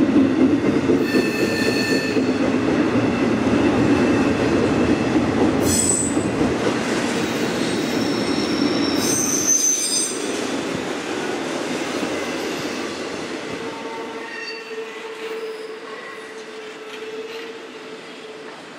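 Autorack freight cars rolling past, their steel wheels rumbling on the rails, with several brief high-pitched wheel squeals. The rumble grows fainter over the last several seconds.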